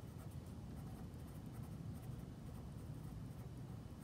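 Faint scratching of a marker pen writing on paper, over a low steady background rumble.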